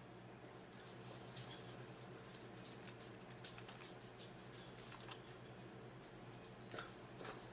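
Close-up eating sounds: a person chewing food, with scattered small crackly clicks and smacks.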